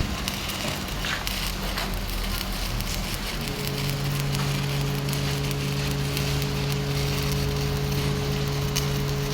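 Stick-welding arc burning on a steel pipe joint, a continuous crackling sizzle with scattered pops. A steady low hum joins about three and a half seconds in.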